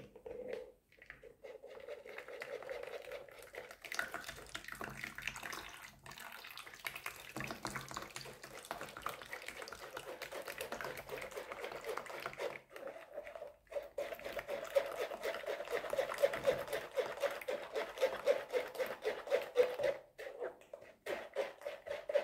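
Metal spoon rapidly scraping and stirring blended pineapple pulp in a strainer, pressing the juice through into a bowl with wet, liquid sounds. The scraping gets louder and faster about two-thirds of the way in.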